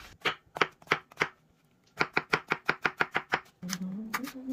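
Knife chopping mushroom and yellow bell pepper on a wooden cutting board: a few separate cuts, a short pause, then a quick run of about six cuts a second. A low steady hum comes in near the end.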